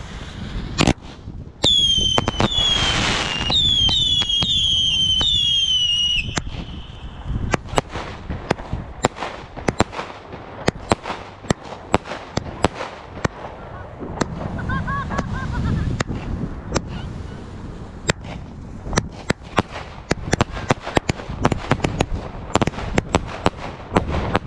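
Fireworks: about half a dozen whistles, one after another, each falling in pitch, then a rapid, irregular string of sharp bangs and crackles as aerial shells burst.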